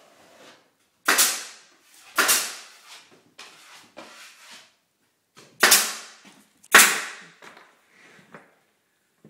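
Four loud, sharp bangs in two pairs, each pair about a second apart, with fainter knocks between them. Each bang rings out briefly in a bare, emptied room.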